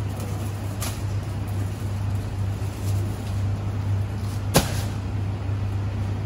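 A steady low motor hum, with the light knocking of plastic milk crates being handled and one sharp crate knock about four and a half seconds in.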